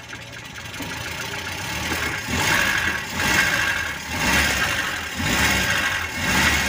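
Mitsubishi Colt T120's four-cylinder petrol engine running, revved in a string of short throttle blips about once a second from about two seconds in, while its ignition timing is set by turning the distributor.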